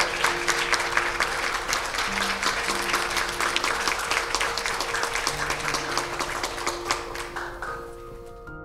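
Guests applauding, the clapping dying away near the end, over soft instrumental music with slow held notes.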